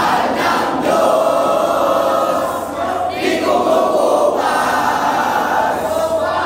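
A group of Rover Scouts singing and chanting their subcamp yell in unison, in long held phrases with short breaks between them.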